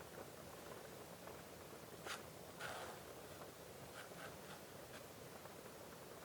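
Dip pen nib scratching on sketchbook paper in a few faint, short strokes, the longest about two and a half seconds in, with a couple of light ticks around four seconds.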